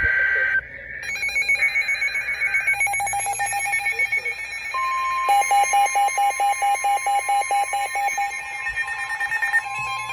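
NOAA Weather Radio alert tones on a weather alert radio, announcing a new warning. First come bursts of SAME data tones. About five seconds in, the steady 1050 Hz warning alarm tone comes on, joined by the radio's rapid alarm beeping.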